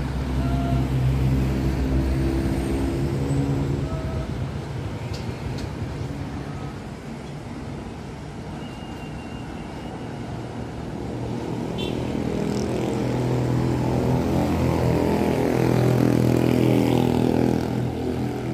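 Coach bus diesel engine running as the bus manoeuvres through the lot. The engine dips in the middle, then grows louder as the coach drives past close by, loudest near the end.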